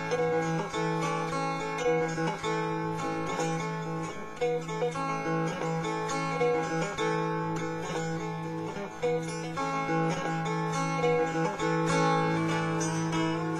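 Mountain dulcimer strummed in noter-and-drone style: a melody stopped with a noter on the melody string over a steady low drone, with an even strumming rhythm.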